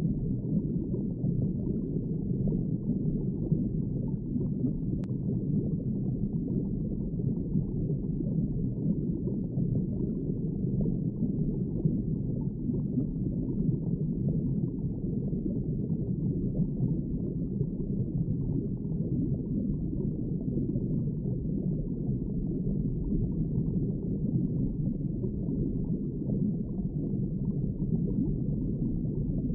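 Underwater ambience: a steady, muffled, low rumbling wash of water noise with no distinct events.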